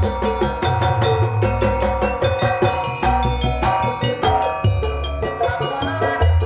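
Instrumental band music with no singing: drums keep a steady beat under a pulsing bass line, while pitched melodic instruments play held and moving notes above.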